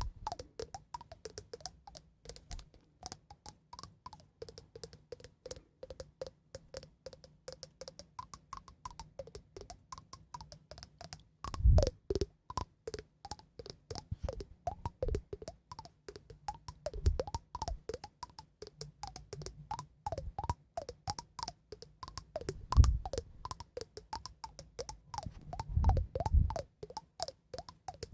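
Close-miked light tapping and clicking, many quick taps a second, with a few louder dull thuds now and then.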